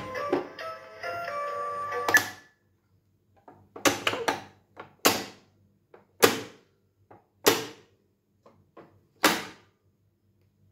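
A plastic pop-up toy's electronic tune plays and cuts off about two seconds in. Then come sharp plastic snaps as the pop-up animal lids are pushed down and latch shut: about six loud ones, with softer clicks between.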